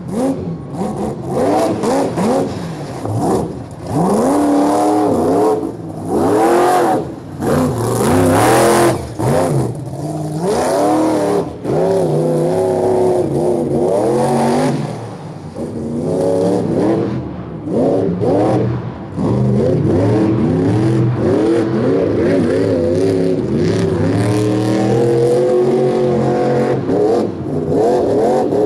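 Monster truck engine revving hard and falling back again and again in quick surges, then held at a steadier high rev for the last several seconds.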